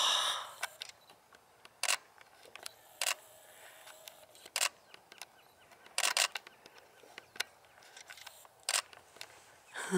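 Camera shutter clicking about five times at irregular intervals a second or more apart, once as a quick double, with fainter ticks between.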